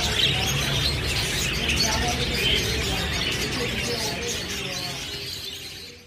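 A dense chorus of many small birds chirping at once over a low steady background sound, fading out near the end.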